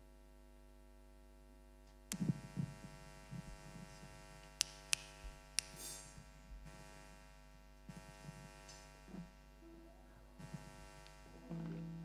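Steady electrical hum from the sound system, broken from about two seconds in by scattered knocks and low thumps, with three sharp clicks close together in the middle. A short, held low note sounds near the end.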